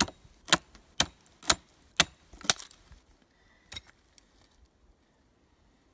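Hatchet chopping into the sappy base of a pine stump: six sharp blows about two a second, then one fainter knock a little over a second later.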